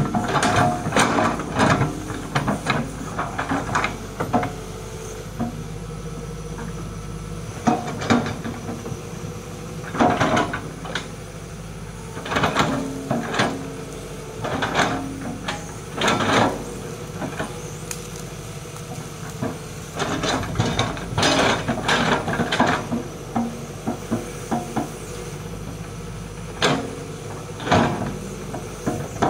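Hitachi crawler excavator's diesel engine running steadily under load while it digs. The bucket gives repeated short knocks and scrapes as it bites into and dumps earth.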